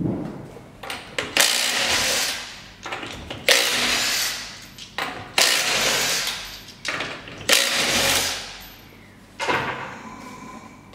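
Impact wrench run in repeated bursts of about a second each, with short blips between them, undoing the nuts of a car's front wheel.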